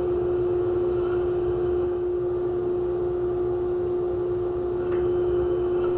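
Vacuum motor running steadily with a strong, even whine, pulling air through the dust-collection hose at the chop saw's port with very good suction. A faint click about five seconds in.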